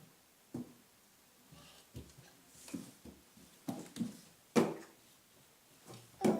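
Scattered knocks and clatters of a toddler handling the inside of an empty refrigerator, with the loudest knocks about halfway through and just before the end.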